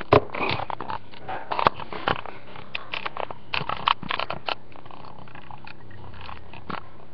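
Hard plastic Mighty Beanz toy and its plastic blister tray handled close to the microphone: a quick, irregular run of sharp clicks and rustles over the first four and a half seconds, then the handling stops.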